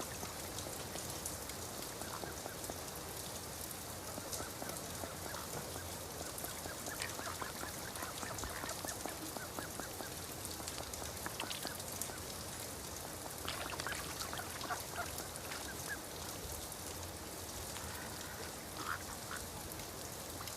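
Steady rain falling, with bursts of short, quick bird calls, quack-like, a few times: about a third of the way in, again past the middle, and briefly near the end.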